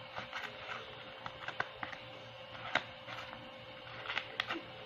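Light clicks, taps and scrapes of a thin cardboard box being handled as a mini frying pan is slid out of it, with one sharper tap a little under three seconds in.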